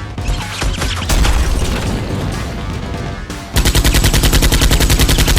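Action background music with scattered hits, then, about two-thirds of the way in, a loud burst of rapid automatic gunfire, roughly ten shots a second for about two seconds: a dubbed machine-gun sound effect.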